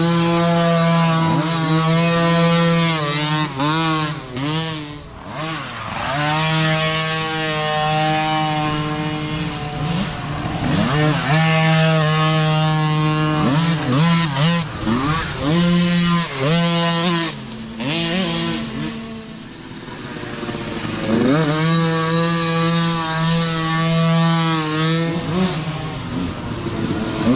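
Small engines of several youth micro dirt bikes revving up and down as they pass one after another, the pitch rising and falling with each blip of the throttle. There are short lulls about five seconds in and again around twenty seconds before the next bikes arrive.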